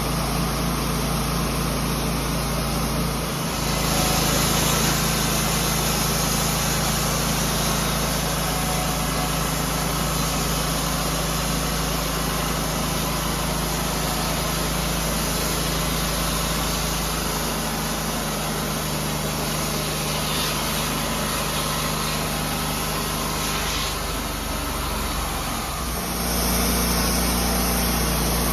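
Engine of a portable sawmill running steadily, its note shifting about four seconds in and again near the end.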